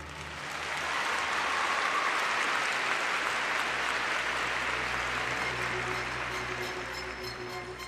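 Arena audience applauding during a pause in the skating music; the applause swells in the first second or two and slowly thins out as music comes back in near the end.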